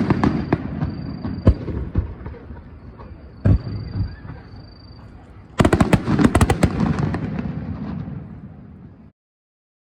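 Aerial fireworks bursting: several single booms with rumbling tails, then a rapid cluster of sharp cracks about five and a half seconds in, followed by a rumble that fades away.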